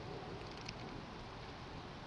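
Faint, steady outdoor background hiss, with a few faint ticks about half a second in.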